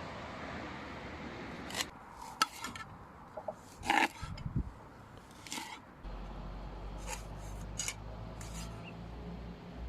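A kitchen knife cutting on a metal pot lid that serves as a chopping board: irregular sharp clicks and light scraping, the loudest click about four seconds in.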